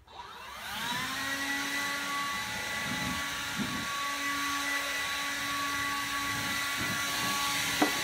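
Electric fan motor, like a wet/dry vacuum or blower, spinning up over about a second and then running with a steady high whine and a rush of air. There is a short knock near the end.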